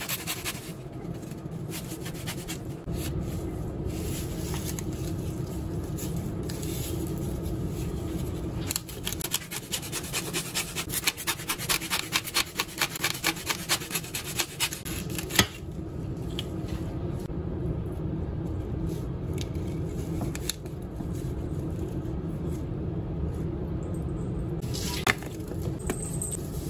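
Hacksaw cutting through large foam dice and their mesh net bag with quick back-and-forth strokes, fastest from about a third of the way in until just past halfway. The strokes then stop, leaving a quieter steady background with a few scattered clicks.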